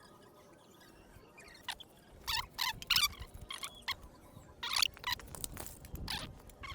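Thermocol (polystyrene foam) squeaking and rubbing in short, irregular squeaks as it is worked into petrol to make a sealing paste.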